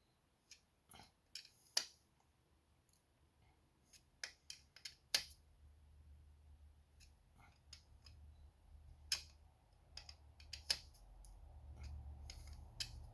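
Scattered light metallic clicks and taps of hand tools working on bolts, coming irregularly in small clusters, with a faint low hum growing toward the end.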